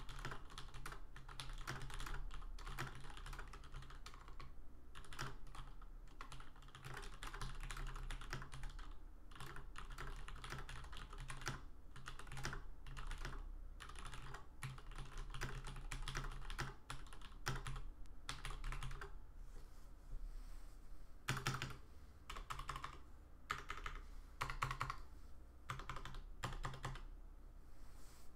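Typing on a Leopold FC980M mechanical keyboard with Cherry MX Black linear switches: a fast, continuous run of key clacks, thinning near the end to slower, separate keystrokes.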